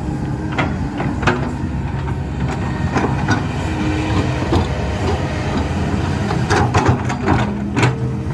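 Heavy diesel engine running steadily under load, with repeated sharp metallic clanks and knocks, clustered most thickly near the end.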